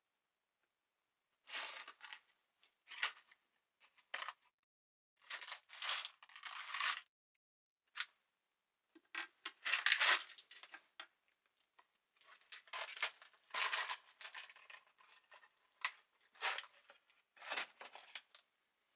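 Small metal hardware, such as screws, clinking and rattling in irregular bursts as it is handled, with short pauses between handfuls.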